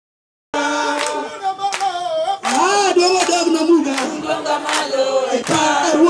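A group of voices, a man with a crowd of women, singing together unaccompanied, with hand claps keeping a steady beat. It starts about half a second in.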